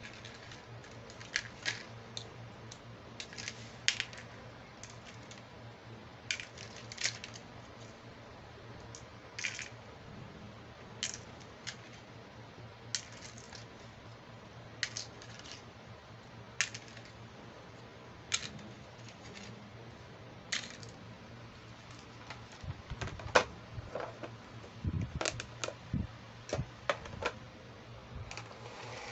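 Small plastic toy pieces clicking and tapping against each other and the tabletop as they are handled and set down: single sharp clicks every second or two, turning into a denser clatter in the last several seconds.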